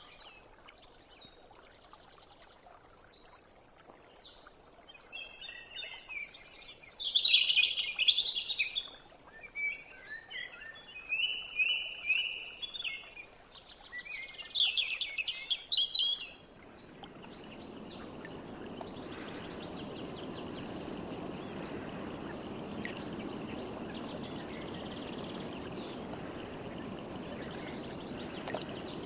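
Recorded nature ambience: several songbirds chirping and trilling in quick overlapping phrases, then about halfway through a steady rush of running water takes over, with only faint bird calls above it.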